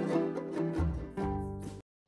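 Background music dying away, cutting off to silence near the end.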